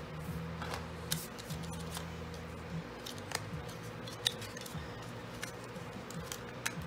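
Cardstock being folded and pressed flat by hand: paper rustling and crinkling with a handful of sharp little clicks and taps spread through.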